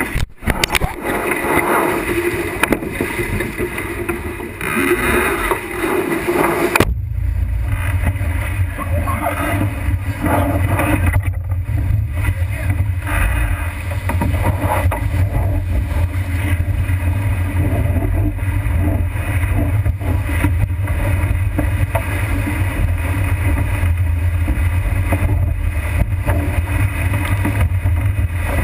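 Wind and water rushing past an action camera on the deck of a sailboat heeled hard in rough seas. For about the first seven seconds it is a loud hissing wash of water and spray, then it changes suddenly to a steady low rumble of wind buffeting the microphone.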